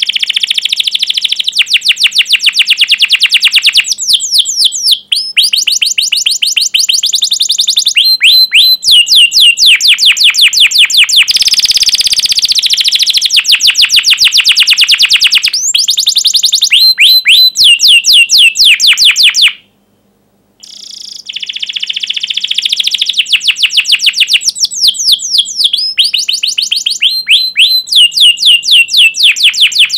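Domestic canary singing a loud, long song of fast repeated trills and sharp 'cuit cuit' chirps. The song breaks off for about a second about two-thirds of the way through, then resumes.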